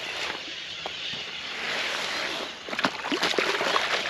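A large fish splashing and thrashing at the water's surface as it is released from a landing mat back into a lake, the splashing setting in sharply about three seconds in.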